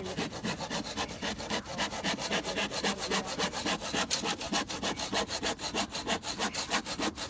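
Saw cutting through wood debris, a rapid, even rhythm of about six strokes a second.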